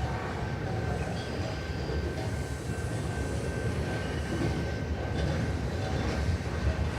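CN freight train rolling past: a steady low rumble of the train on the rails, with a faint thin steady whine held above it throughout.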